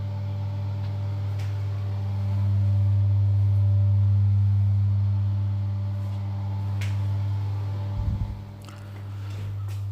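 A steady low hum with overtones, swelling for a few seconds in the middle and dipping briefly near the end, with a couple of faint clicks.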